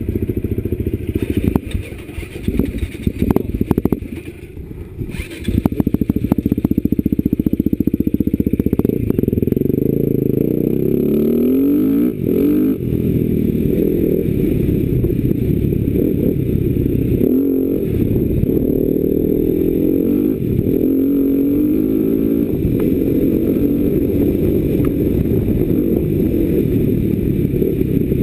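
Enduro motorcycle engine pulling away and being ridden along a trail, uneven with some clatter for the first few seconds, then running hard with the revs rising and falling again and again through the gears.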